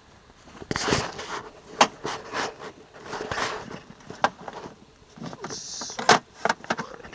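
Handling noises from boat parts being fitted together: scattered sharp clicks and knocks with short scrapes and rustles in between.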